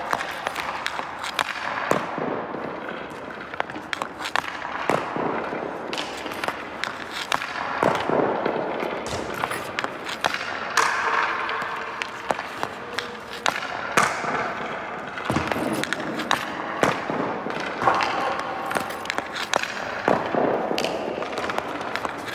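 Ice hockey pucks being shot with a stick and striking the boards, net and ice, as irregular sharp cracks, several close together at times, echoing around an indoor rink.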